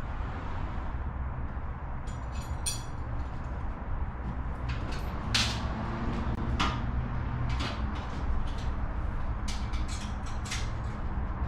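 Scattered clicks and light metallic taps of mounting hardware being handled on a roof rack, starting about two seconds in, over a steady low rumble.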